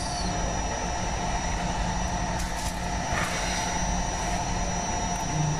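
Steady drone of a hot-air rework station's blower fan, with a few faint clicks from small tablet parts being handled.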